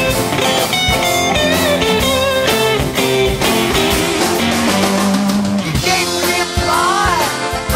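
Rock band instrumental: guitar playing melodic lines over a steady drum kit beat, with a bending guitar phrase near the end.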